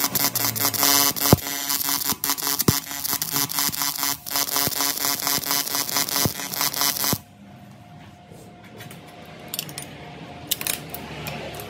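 A buzzing power tool runs steadily for about seven seconds and cuts off suddenly, followed by a few light metal clinks.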